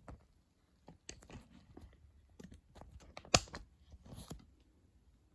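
Scattered light clicks and crackles, with one sharper, louder click about three seconds in.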